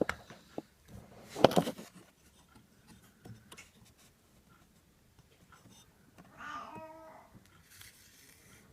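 A cat meowing once, briefly, about six and a half seconds in, among light clicks and knocks of handling. The loudest of these is a sharp knock about a second and a half in.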